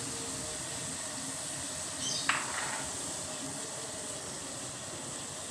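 Just-boiled water being poured, a steady hiss of hot water and steam. About two seconds in there is a brief falling swish that ends in a light knock.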